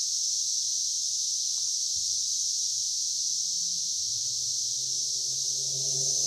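Dense chorus of Brood X periodical cicadas: a loud, steady, high-pitched drone that never lets up. A low steady hum comes in underneath about four seconds in.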